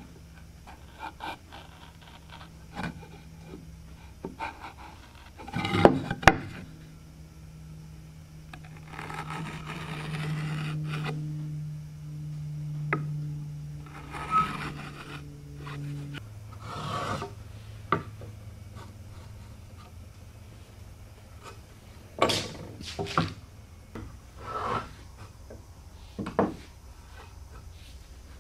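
A wheel marking gauge rubbing and scraping along wooden boards as layout lines are scribed, with scattered taps and clicks and two sharp knocks about six seconds in.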